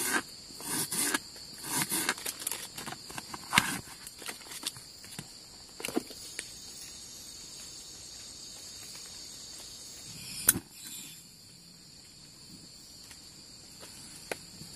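Knife slicing a shallot on a plastic cutting board: a quick, uneven run of knocks through the first few seconds. Behind it is a steady chirring of night insects such as crickets, and there is a single sharp click about ten seconds in.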